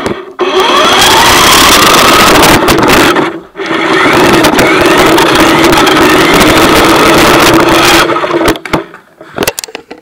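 RC car's motor whining as it drives, very loud, rising in pitch as it speeds up at the start. It drops out briefly about three and a half seconds in, then runs steadily and breaks up into short spurts near the end.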